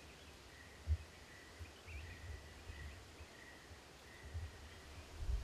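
Outdoor ambience: irregular low rumbling and a sharp low thump about a second in, typical of wind buffeting the microphone, over a faint steady high tone and a few faint chirps about two seconds in.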